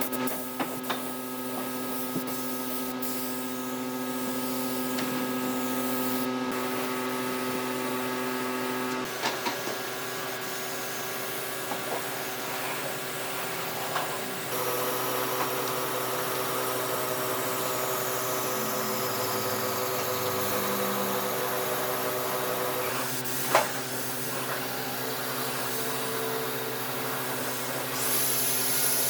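Workshop power tool running steadily, a motor's hum with hiss, changing character abruptly several times, with a few light knocks and one sharper click near the end.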